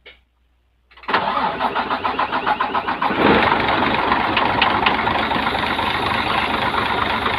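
Isuzu 6WG1 inline-six diesel started about a second in: it cranks with a fast pulsing rhythm, catches around three seconds in, and runs steadily. The valve cover is off, so the rocker gear runs open. This is the test start after all six injector washers were replaced to cure smoke venting from inside the engine.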